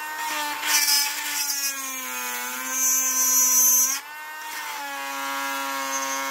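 Cordless rotary tool running with a steady high whine while its cutting bit grinds through the metal rod holding a statue's cape, throwing sparks. The grinding turns harsh and hissing twice, about a second in and again from about three to four seconds in, where the whine sags a little under the load.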